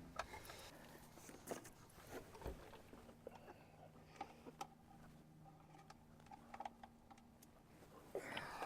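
Near silence with faint, scattered clicks and taps over a low steady hum.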